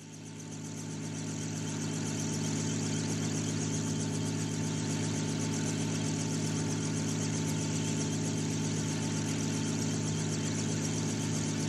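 A steady, low engine-like drone with a constant hum, fading in over the first couple of seconds and then holding level.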